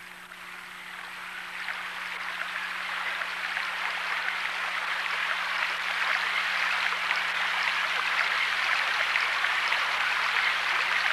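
Flowing stream water, a steady rushing and babbling that fades in and grows gradually louder, with a faint steady low hum underneath.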